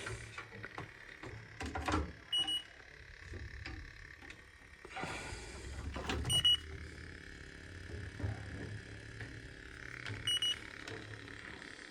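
Electronic refrigerant leak detector giving short high beeps about every four seconds, three in all; the slow, steady rate shows no refrigerant is being picked up. Handling clunks and rustling are heard under it.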